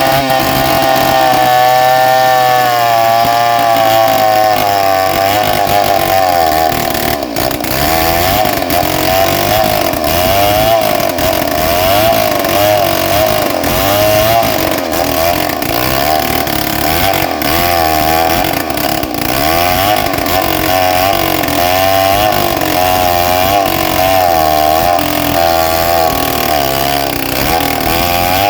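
Stihl 070 two-stroke chainsaw running at high revs while ripping a trembesi (rain tree) log lengthwise. The engine note wavers and dips continually as the chain bogs and recovers under load in the cut.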